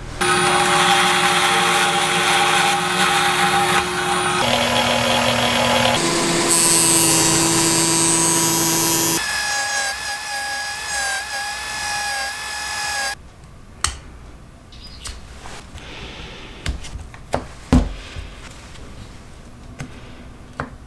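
Small bench power tools running on plywood parts in several short clips, each a steady whine at a different pitch. From about two-thirds of the way through, the machine sound stops and is followed by quieter, scattered light clicks and knocks as the curved plywood jaw pieces are handled and fitted together.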